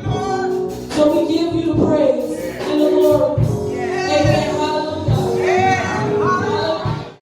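Gospel worship music: voices singing over a band with a steady low beat. It cuts off suddenly near the end.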